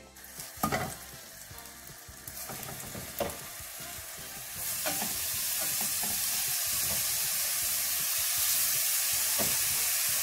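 Marinated chicken breasts frying in an oiled stainless-steel pan, with a few light knocks in the first few seconds as pieces go in. About four and a half seconds in the sizzle grows louder and then holds steady.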